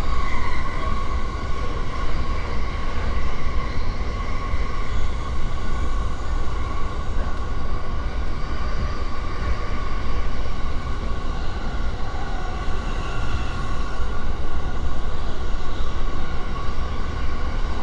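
Inside a JR East E231-series commuter train running at speed: a steady low rumble of wheels on rail with a steady whine on top.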